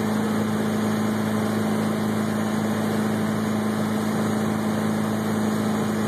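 Tow boat's engine running steadily at speed, pulling a barefoot water-skier, over the even rush of water and spray.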